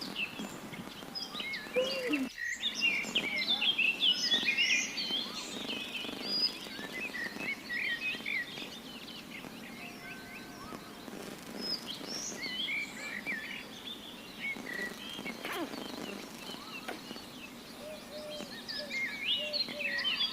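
Several small birds chirping and twittering in quick overlapping calls, busiest in the first few seconds and again near the end, over a steady low background noise.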